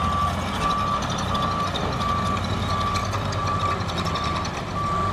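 Heavy-equipment backup alarm beeping steadily in single even tones, about three beeps every two seconds, over the low steady running of diesel engines from a tipped end-dump truck and a crawler dozer spreading gravel.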